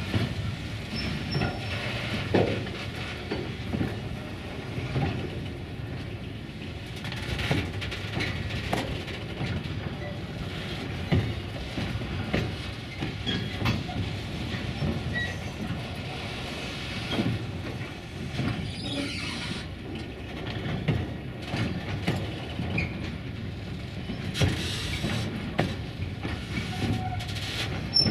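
Freight train wagons rolling by, their wheels knocking irregularly over rail joints above a steady low rumble.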